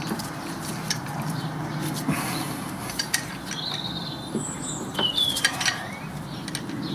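A G-clamp being screwed down on a motorcycle's front brake caliper to push the piston back: scattered small metallic clicks and scrapes as the clamp is turned.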